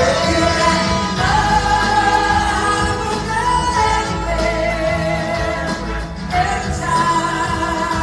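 Live blues-rock band playing: a woman sings long held notes over electric guitars, bass and drums, heard from the audience in a large hall.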